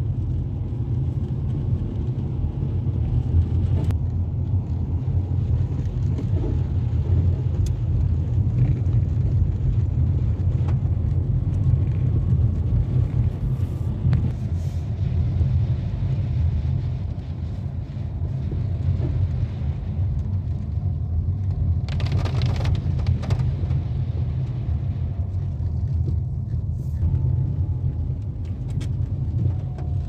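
Steady low rumble of a Dacia Duster driving on a wet road, heard from inside the cabin: engine and tyre noise. About two-thirds of the way through, a brief louder rush of hiss rises over it.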